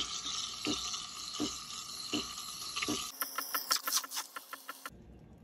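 Espresso machine steam wand hissing into milk in a stainless steel pitcher as it froths, with a low pulse about every 0.7 seconds. About three seconds in the sound changes to a rapid crackle for under two seconds, then drops away.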